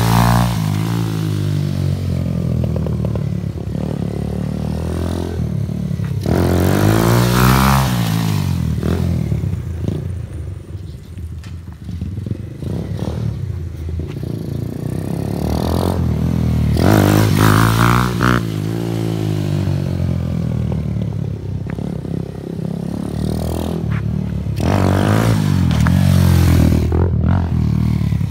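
TaoTao Hellcat 125cc single-cylinder motorcycle with a new aftermarket exhaust, revved hard as it accelerates past three times, about nine seconds apart. Each time the engine note climbs as it comes on and drops away as it goes by, with quieter running in between.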